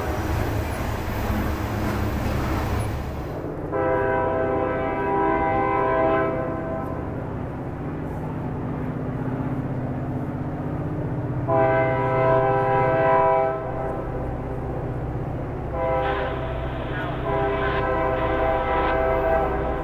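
Diesel locomotive horn on an approaching freight led by an EMD SD40-2, sounding a chord in two long blasts, a short one and a long one: the grade-crossing signal. Under the horn is the low rumble of the SD40-2s and GP38-2 working upgrade. Before the horn, the tail of a passing tank-car train rolls by.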